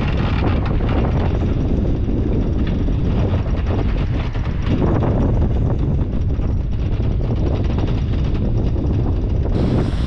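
Strong wind buffeting the microphone on a sailboat in a building storm: a steady, dense rush, heaviest in the low rumble.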